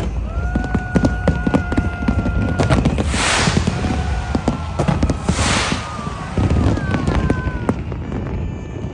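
Fireworks going off: a quick run of bangs and pops, with two loud hissing crackles about three and five seconds in.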